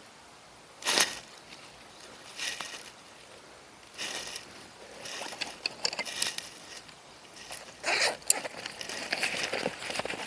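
Rustling and crackling of fishing gear and a bag being handled. There are several short, scratchy bursts, the loudest about a second in, and a busier run of crinkles in the second half.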